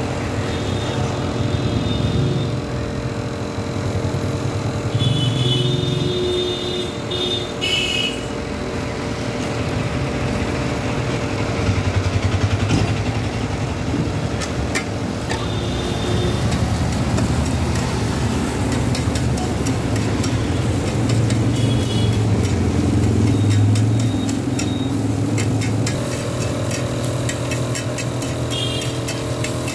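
Road traffic with vehicle engines running, a steady low rumble. A metal spatula clatters against the iron griddle in quick clicks near the end.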